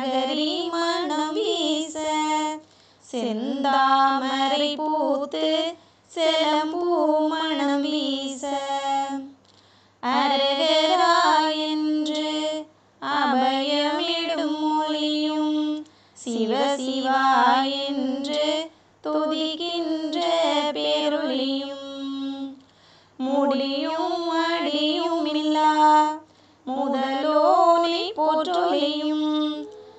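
A woman's voice singing a devotional song unaccompanied, in sung phrases of about two to three seconds with short pauses between them.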